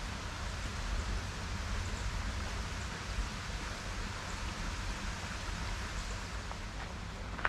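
Steady rush of creek water flowing, an even hiss with no breaks.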